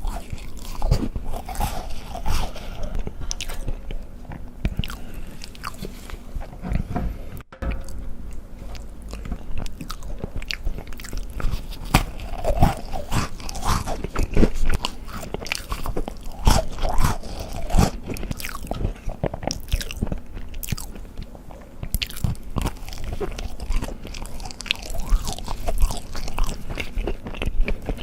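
Close-miked eating of chocolate desserts: repeated crunchy bites and chewing, with many sharp crunches. There is a brief dropout about seven and a half seconds in.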